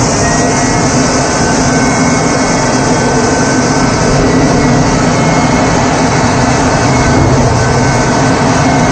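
Aircraft engine noise, loud and steady, with faint high whining tones above it.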